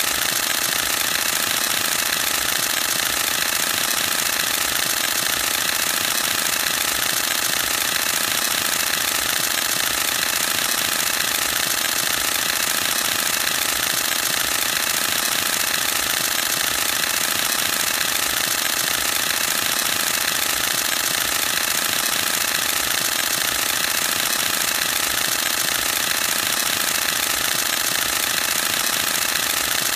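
Canon EOS-1D X Mark II DSLR firing a continuous high-speed burst: mirror and focal-plane shutter cycling in a rapid, even rattle of clicks that never lets up.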